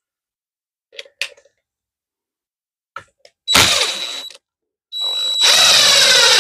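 Cordless drill/driver driving a wood screw: a few small handling clicks, then a short burst of the motor's high whine about three and a half seconds in, and a longer run from about five seconds in.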